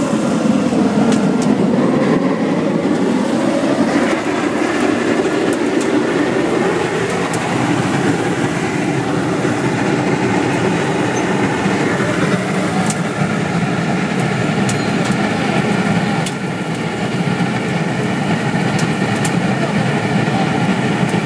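Biomass sawdust burners firing: a loud, steady rushing noise of the flame jetting from the burner mouth together with the burner's air blower.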